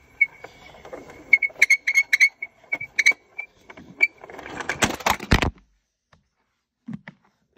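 Plastic toy parts clicking and rattling as the toys are handled, over a faint steady high whine. This ends in a louder rush of noise and knocks that cuts off suddenly about five and a half seconds in.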